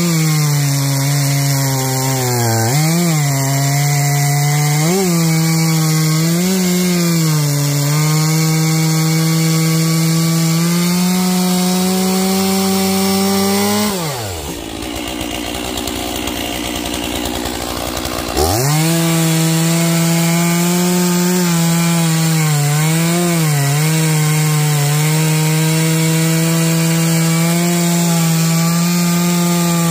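Stihl MS461 single-cylinder two-stroke chainsaw running at full throttle, bucking Douglas fir logs, its pitch dipping now and then under load. About halfway through the throttle is released and the saw drops to idle for about four seconds, then revs sharply back up and cuts again.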